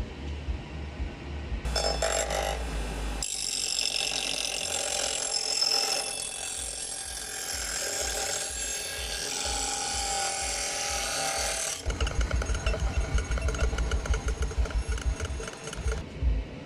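Bench grinder wheel grinding the steel edge of an old hatchet head: a steady, gritty grinding noise with a high whine in it, starting about two seconds in and cutting off suddenly near twelve seconds. After it, a rhythmic low pulsing sound.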